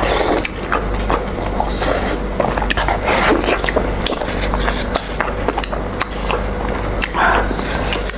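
Close-miked eating sounds: noodles being slurped and chewed, with many irregular wet smacks and clicks.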